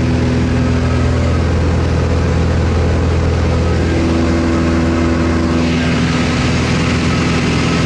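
Engine of a small high-wing propeller plane droning steadily, heard from inside the cabin during the climb. A hissier rush builds about five and a half seconds in.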